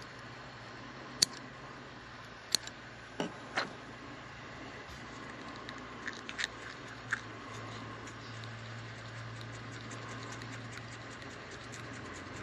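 Scattered small, sharp clicks and taps of fly-tying tools and materials being handled at the vise, about six over several seconds, over a steady low hum.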